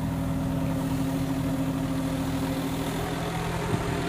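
Car engine idling steadily, with one brief tick near the end.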